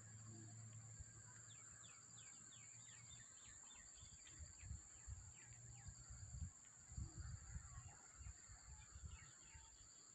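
Faint bird calls in the distance: a quick run of short chirps starting about a second in and another run near the end, over low rumbling wind on the microphone.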